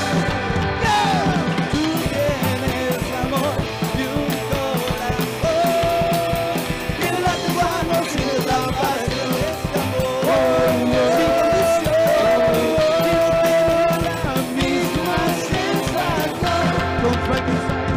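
Rockabilly band playing live: upright bass, hollow-body electric guitar and drum kit, with a vocal line over the top.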